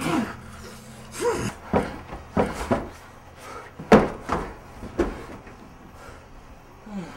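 A series of about seven sharp knocks and thumps, the loudest about four seconds in, several carrying a short falling vocal sound.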